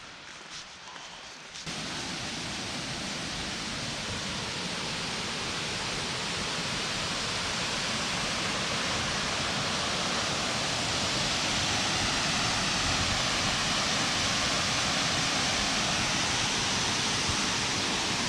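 Steady rushing of a large waterfall. It comes in abruptly about a second and a half in, after a few faint strokes, and builds a little louder before holding steady.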